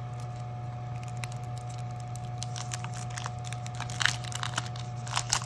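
Crinkling and crackling of plastic and paper as hands handle a pair of self-adhesive envelope pockets, in irregular crackles with a louder cluster about halfway through and another about four seconds in. A steady low hum runs underneath.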